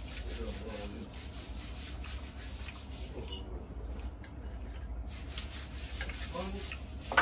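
A table knife sawing back and forth through steak, a rasping scrape that stops for about a second and a half midway and then starts again, with a sharp knock near the end.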